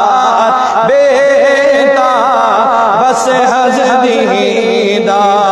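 A man singing a naat, drawing out a long wordless melismatic phrase: a held note about a second in, then wavering ornaments in pitch.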